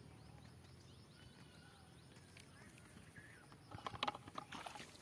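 Quiet pond-side ambience with a few faint short chirps, then about three-quarters of the way through a burst of rustling and splashing in the weeds and water as the cane fishing rod is lifted.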